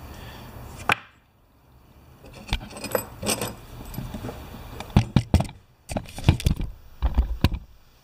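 Steel lag screws and thin metal strap brackets clinking and rattling against each other and a wooden workbench as they are picked up and handled, a string of sharp separate clinks.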